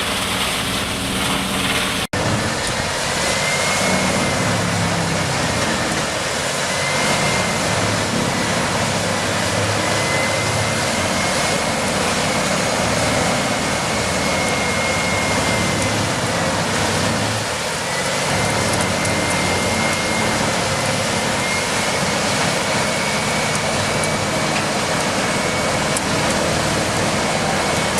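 Heavy machinery running steadily: an engine hum under a loud, even noise with a faint wavering high whine. The sound drops out for an instant about two seconds in, where one clip cuts to another.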